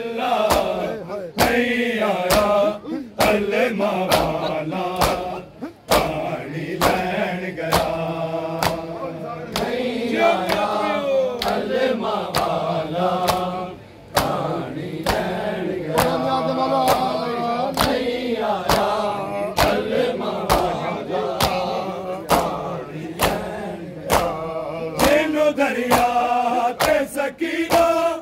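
Men's voices chanting a noha, a Shia lament for Muharram, over frequent sharp slaps of hands beating bare chests in matam.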